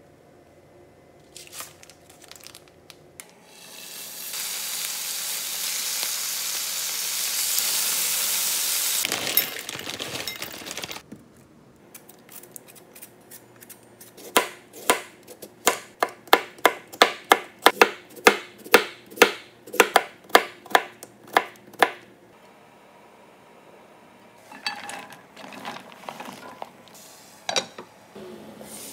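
A vegetable peeler scraping the skin off a raw potato in quick, even strokes, between two and three a second, for about eight seconds. Before it comes a steady rushing hiss lasting several seconds, and a few light clatters near the end.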